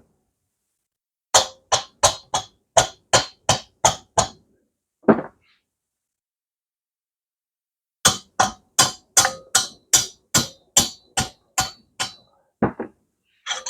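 Hammer blows on a motorcycle engine's cylinder as it is knocked loose from the crankcase. The blows come in two quick runs, about three a second: about ten, a single blow, then after a pause about fourteen more and one last blow near the end.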